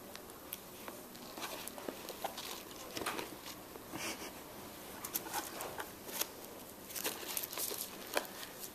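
Bengal cat scrabbling about inside a cardboard shoe box: irregular light scratches, taps and rustles of paws and claws on cardboard.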